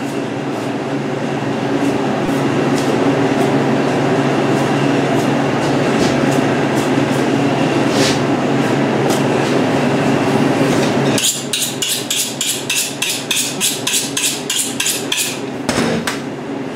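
Steady hum of a walk-in meat cooler's refrigeration unit. About eleven seconds in the hum cuts off, and a rapid run of sharp clicks follows, about five a second for some four seconds.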